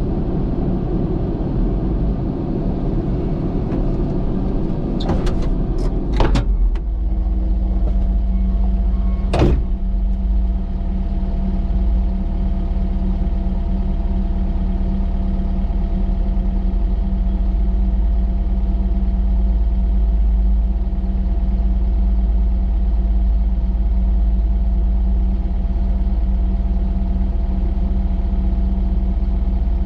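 Diesel engine of a tracked earthmoving machine running steadily under a low rumble, with a few sharp knocks or clanks about five to six seconds in and one more a few seconds later.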